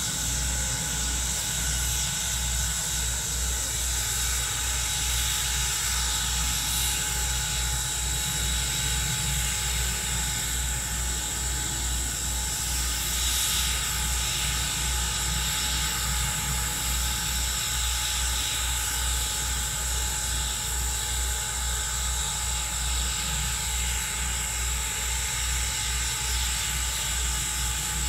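Steam locomotive standing at idle: a steady hiss with a fast, even low throbbing underneath and a few fixed high tones, unchanging throughout.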